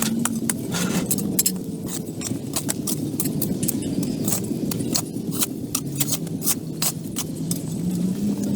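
A motor running with a steady hum whose pitch drifts slightly, with many sharp clicks and taps throughout.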